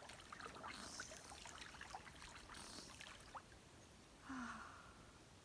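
Quiet splashing and trickling of lake water around a swimmer floating on her back and moving her arms, mostly in the first three seconds or so, then a brief soft sound about four seconds in.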